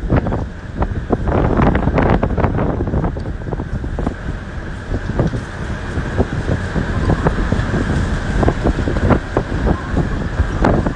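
Hurricane-force wind gusting hard and buffeting the microphone in irregular blasts.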